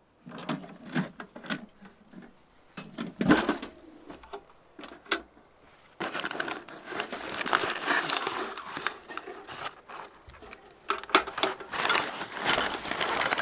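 Metal clicks and knocks from a homemade ammo can wood stove being handled and put together. From about six seconds in, a continuous crinkling rustle of paper follows, with a paper bag being handled near the end.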